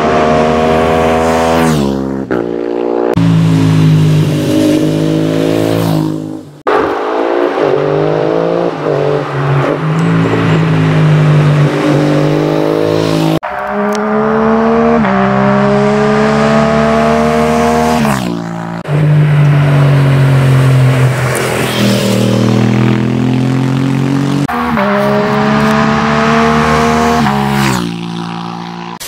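Aprilia RS457's 457 cc parallel-twin engine through a full Arrow exhaust system, accelerating hard through the gears on fly-bys. The revs climb, drop at each upshift and climb again, over and over, with a few sudden breaks between runs, and the sound fades away near the end.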